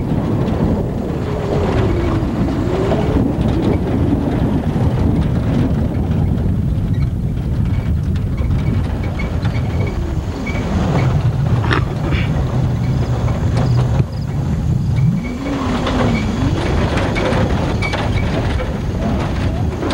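Pickup truck driving over a rough dirt road: a steady engine and road noise, with the engine pitch falling and rising twice as the throttle changes. Rattles and knocks from the bumpy track run through it, with one sharp jolt about two-thirds of the way in.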